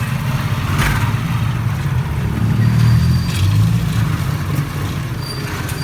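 Small motorcycle engine of a Philippine tricycle running, growing louder for a second or so about halfway through as it pulls.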